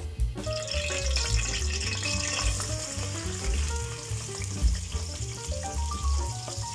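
Chopped red onions hitting hot vegetable oil in an aluminium pot and sizzling as they start to fry, the sizzle beginning about half a second in. Background music with a bass beat plays underneath.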